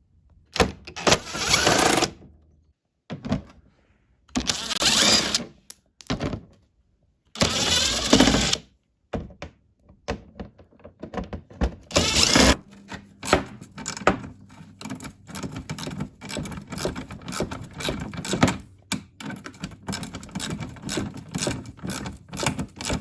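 Recoil starter cord on a Craftsman Briggs & Stratton snowblower pulled four times, each pull a rasping whir of about a second, with the engine not catching: a no-start. After that come fast, irregular ratcheting clicks.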